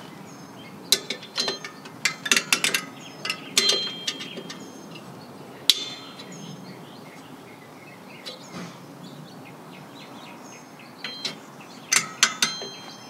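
Brake hold-down spring tool clicking and clinking against the steel retainer cups and springs of a drum brake's shoes as it is fitted over them and twisted. The sharp metallic clicks come in irregular bunches, with a quieter stretch in the middle and another bunch near the end.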